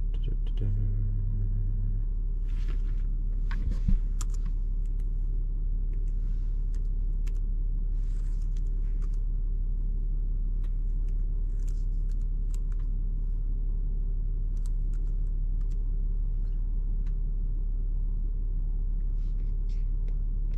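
A steady low hum throughout, with a short, louder low tone about a second in, scattered faint clicks, and one sharp knock about four seconds in.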